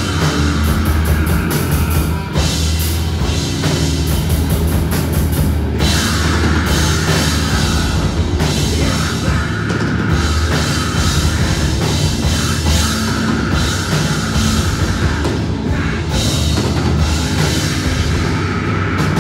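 Loud live rock band playing on stage, with electric bass guitar, electric guitar and a drum kit.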